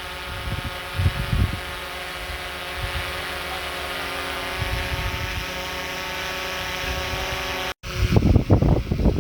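An engine running at a steady speed, with low gusts of wind buffeting the microphone at the start and again after a brief cut near the end.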